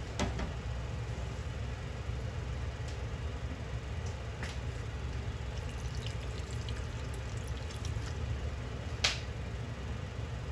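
Cooking sake poured from a plastic bottle into a frying pan of water with chicken and fried tofu, over a steady low hum. A few sharp clicks, the loudest near the end.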